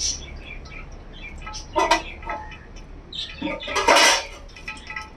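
Kitchen utensils and pans clattering: a clink at the start, another near two seconds, and a louder clatter about four seconds in. Birds chirp in the background.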